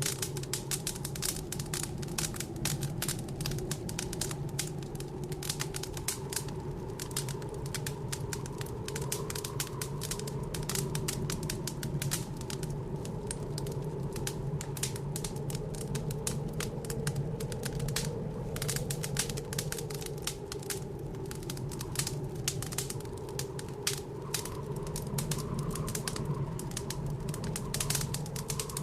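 Wood fire crackling in a fireplace, a dense, irregular stream of sharp pops and snaps, over the steady, slowly wavering howl of blizzard wind outside.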